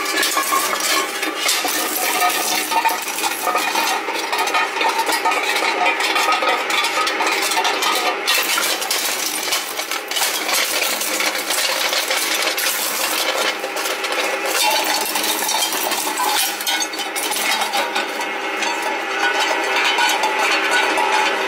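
Glazed ceramic piggy bank clinking and rattling nonstop as it is knocked about on the turning blades of a twin-shaft shredder, until it breaks apart into shell pieces.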